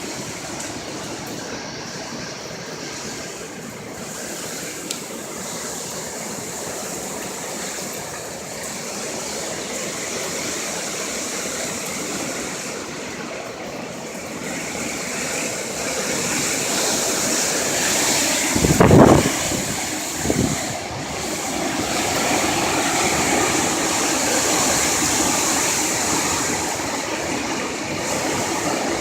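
Hurricane wind blowing in a steady rush that grows louder in the second half, with a heavy thud about two-thirds of the way in and a smaller one just after.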